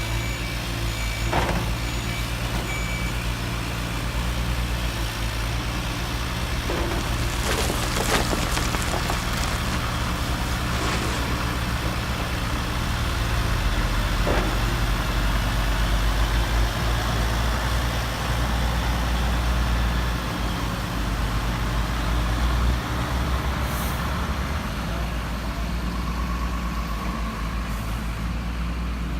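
RC truck sound module playing a diesel truck engine running steadily, with reversing beeps in the first few seconds and a brief hiss like an air brake about eight seconds in.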